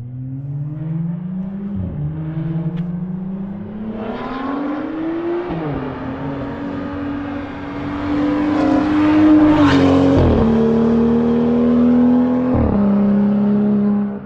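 BMW N55 turbocharged inline-six with catless downpipes and a muffler delete, accelerating hard through the gears in a fly-by. The pitch climbs and falls back at each upshift, four times. It is loudest as the car passes, about ten seconds in.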